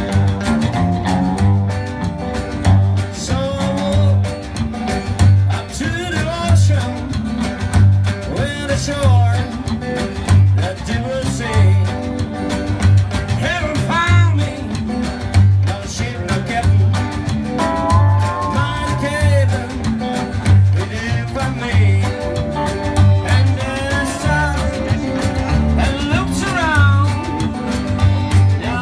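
Live country band playing: electric guitar lines over an upright double bass walking in evenly spaced notes, with drums.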